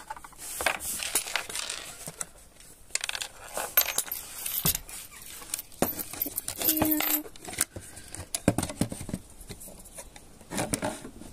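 Small metal screws clinking and jingling as they are handled and dropped, with scattered clicks and knocks of hardware against wood.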